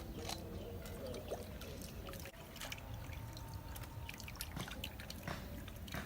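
Water pouring and trickling, with scattered light clicks and knocks.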